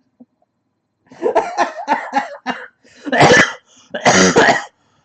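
A person coughing loudly twice, after a short stretch of indistinct voice sounds.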